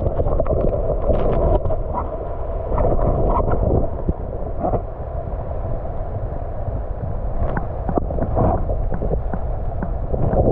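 Muffled water noise picked up by an underwater camera in its housing: a steady low rumble and slosh with scattered knocks and clicks.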